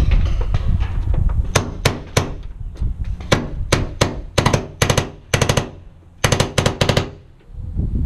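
Paintball marker firing: a few single shots, then rapid strings of three or four pops, about twenty in all. It is preceded by a second or so of scuffling and gear rustle.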